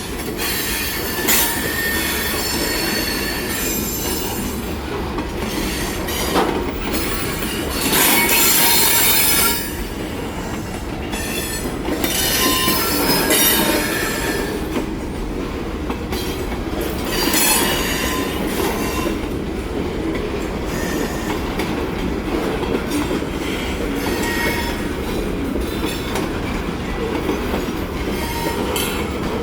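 Railcars rolling past close by: steel wheels running on the rails with a steady rumble and clickety-clack. High-pitched wheel squeals come and go several times, the loudest about eight seconds in.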